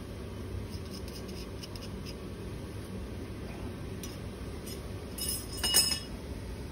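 Glassware clinking: a few faint clicks, then a short run of sharp, ringing glass clinks about five seconds in, over a steady low room hum.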